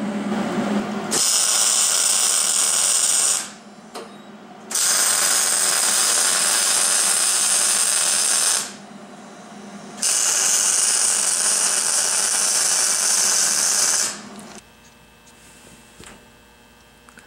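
MIG welding arc from a Hobart Handler 187 wire-feed welder, crackling steadily as beads are run on steel T-joints. Three welds of a few seconds each, with short pauses between them where the arc stops.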